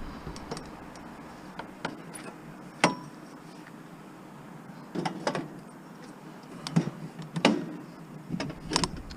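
Scattered knocks and clunks of objects being handled and shifted about, a single sharp knock about three seconds in and several more in the second half.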